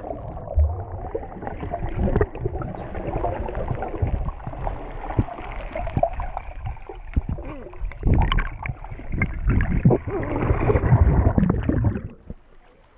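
Muffled water sloshing and gurgling around a GoPro camera moving through the water, with scattered knocks and low thumps. It drops away about a second before the end.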